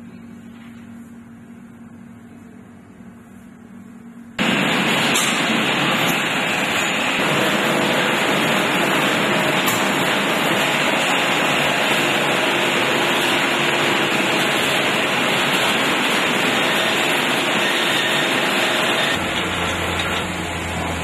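Quiet room tone with a faint low hum, then about four seconds in a loud, steady rushing noise of plant ambience cuts in abruptly and runs on; near the end it eases a little and a low hum comes in under it.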